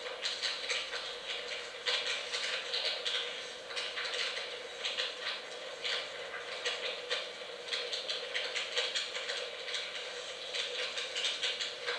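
Crackling fire sound: a dense, irregular run of small pops and snaps, like burning wood.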